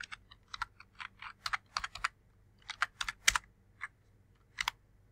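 Computer keyboard being typed on: a run of short, uneven keystroke clicks, the last about four and a half seconds in.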